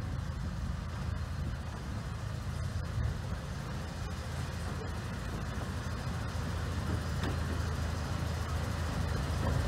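Diesel engine of a Severn-Lamb Bo-Bo diesel-hydraulic narrow-gauge locomotive running with a steady low hum as it approaches slowly, growing gradually louder.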